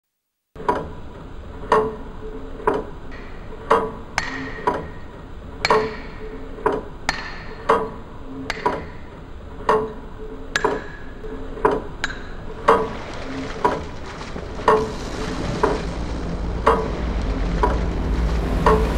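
Pendulum clock ticking steadily about once a second, each tick with a short ring. From about two-thirds in, the rush of sea waves and wind swells up beneath the ticking.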